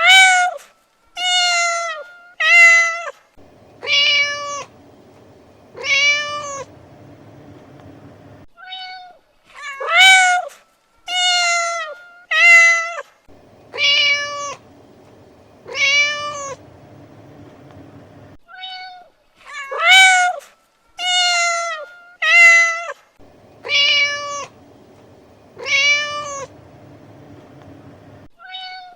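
Domestic cat meowing over and over: about five loud, arched meows in quick succession, with the same run of calls repeating roughly every ten seconds.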